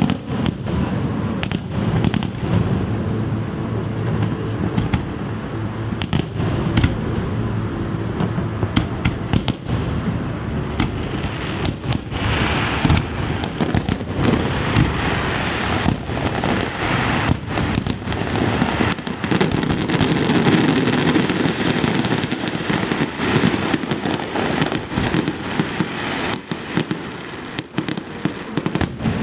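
Fireworks display going off, with many sharp bangs in quick succession over a continuous rumble.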